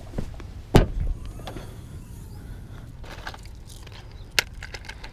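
Fishing gear being handled at an open car's rear hatch: a sharp knock about a second in, a few light clicks, and another sharp knock near the end, over a steady low rumble.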